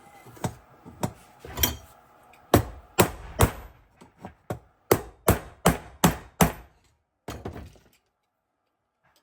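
Hammer blows driving a stubborn old bearing seat out of a wagon wheel hub: a few lighter taps, then a steady run of hard strikes about two or three a second, followed by a short clatter.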